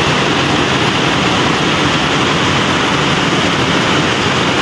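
Heavy rain falling steadily on a concrete rooftop floor, an even, unbroken rush of noise.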